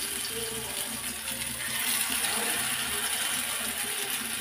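Battered brinjal pakora slices sizzling steadily in hot oil on an iron tawa.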